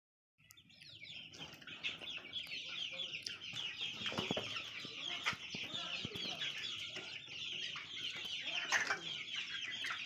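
A flock of young desi chickens calling together: a dense, continuous chorus of high chirping calls with some lower clucks mixed in, fading in about half a second in.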